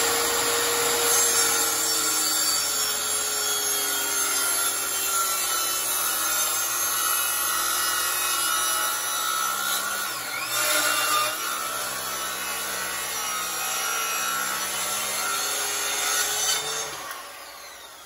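Handheld circular saw running and cutting a long angled ramp along a wooden board, the motor pitch sagging slightly under the load of the cut. Near the end the saw is switched off and winds down.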